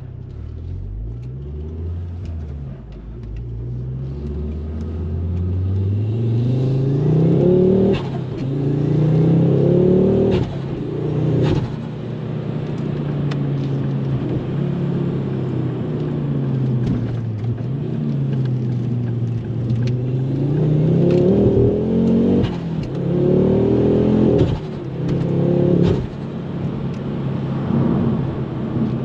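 Ford Focus RS Mk2's 2.5-litre turbocharged five-cylinder engine heard from inside the cabin, accelerating with the revs rising and then dropping sharply at each upshift, several times. It settles to a steadier pitch for a few seconds in the middle, then pulls up through the gears again.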